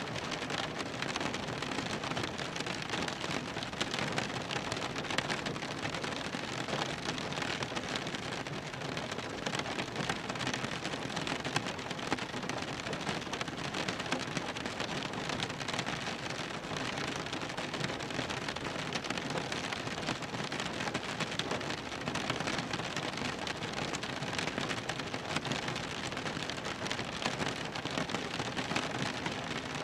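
Steady rain drumming on a car's roof and windows, heard from inside the cabin: a dense, even patter of drops with no letup.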